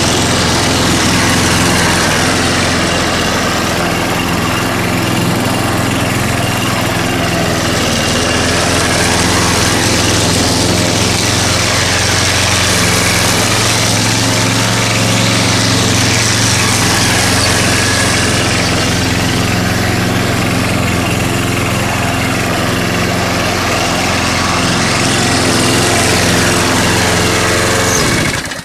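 Pull-start petrol lawn mower engine running close up while cutting grass, a steady engine note with slow swells in its hiss as the mower moves. The sound cuts off abruptly near the end.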